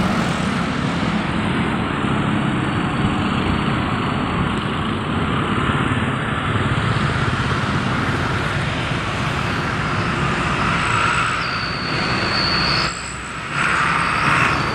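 Road traffic passing close by, a steady mix of engines and tyre noise, dropping briefly near the end.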